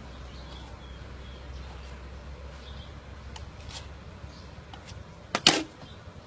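Knife cutting the husk off a young coconut on a wooden chopping block: faint scraping cuts and light clicks, then a sharp double knock about five and a half seconds in.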